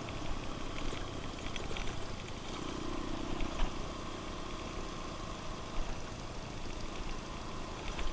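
Single-cylinder Suzuki DR enduro motorcycle engine running steadily while riding on a dirt track, with a steady hiss and occasional light clicks and rattles.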